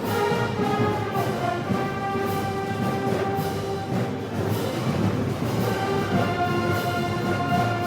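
Brass band playing a Moros y Cristianos festival march: held brass notes over regular drum and cymbal beats.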